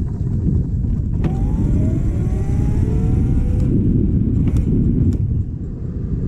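Vespa scooter riding under heavy wind and road rumble, its motor pitch rising for a couple of seconds about a second in as it accelerates.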